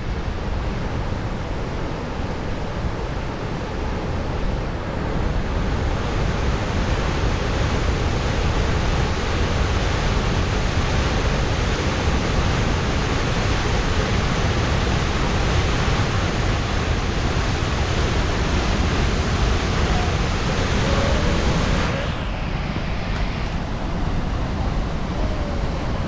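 Huka Falls on the Waikato River: a steady roar of a large volume of water rushing out of a narrow volcanic-rock ravine and crashing into the pool below.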